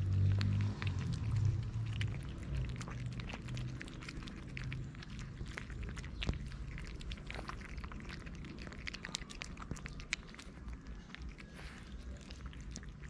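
Cats eating close up: a dense run of small crunches and smacks as they chew dry kibble and wet food from a plate. A low rumble sits under it over the first couple of seconds.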